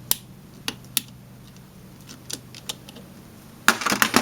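Ratcheting spring-clamp pliers and a heater-hose spring clamp being handled: a few separate sharp clicks, then a quick cluster of clicks and rattles near the end.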